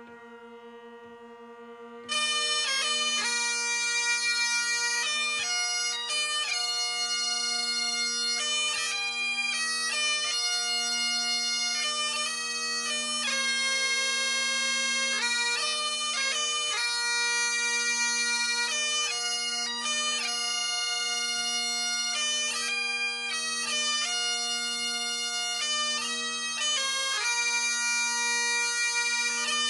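Great Highland bagpipes played by a small pipe band. The drones sound steadily on their own at first, then the chanters strike into a tune about two seconds in and play on over the drones.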